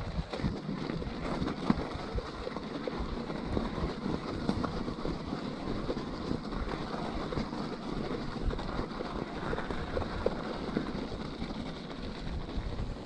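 Scott E-Genius electric mountain bike with plus-size tyres riding over wet snow and slush: steady rolling tyre noise with frequent small knocks and rattles from the bike over bumps, and a sharper knock about two seconds in.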